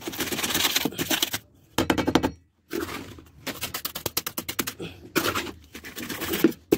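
Rapid clicking and scraping of hands working wet cement mortar around PVC drain pipes, in bursts with a short pause about two and a half seconds in.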